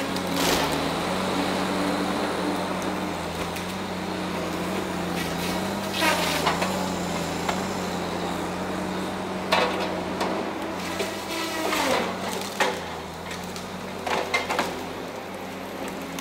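Tigercat 870C tracked feller buncher's diesel engine running steadily, its pitch wavering slightly under load, with sudden cracks and crashes of pine trees being cut and falling, about five times.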